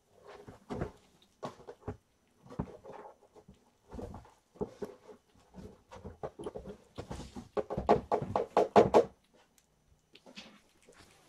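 Kittens eating wet food from dishes: scattered small clicks and knocks, then a quick regular run of taps about three quarters of the way through.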